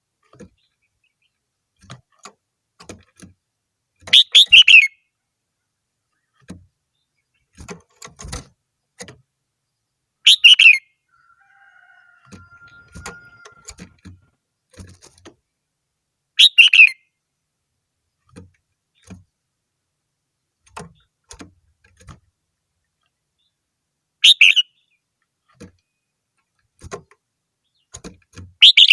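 Red-whiskered bulbul singing: five short, loud warbled phrases spaced several seconds apart, with faint clicks and taps between them.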